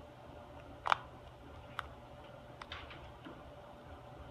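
Fingers poking and pressing into slime, giving a few sharp clicking pops as trapped air breaks through; the loudest is a double pop about a second in.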